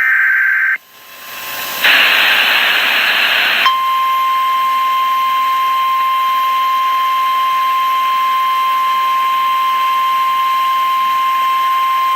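Emergency Alert System broadcast: the last short burst of warbling SAME header data tones, then a hiss that swells into about two seconds of loud static. From about four seconds in comes the steady single-pitch 1050 Hz NOAA Weather Radio alert tone, held unbroken to the end, the attention signal that comes just before a voice warning.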